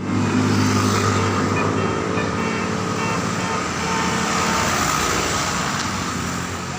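Large vehicle engine running steadily amid road traffic noise, with a few short faint tones about two to three and a half seconds in.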